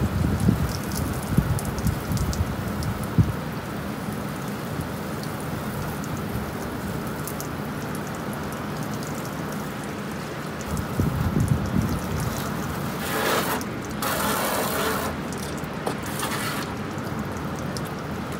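Pressure washer spraying water onto a pickup truck's body, a steady hiss of spray, with louder bursts of hiss about two-thirds of the way through.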